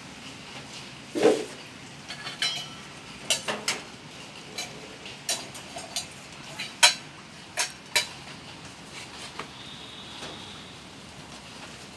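Steady rain hiss with about a dozen irregular sharp clinks and taps scattered through it, the loudest a knock about a second in; the clinks die away in the last few seconds.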